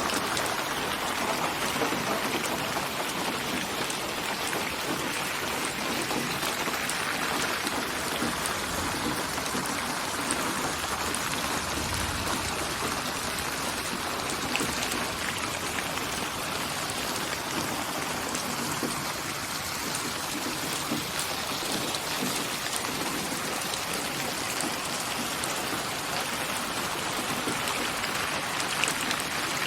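Steady rain falling, a dense, even wash of drops with fine individual ticks and no let-up.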